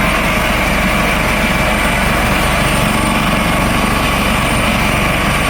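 Coast Guard helicopter running, a loud steady rotor and turbine noise.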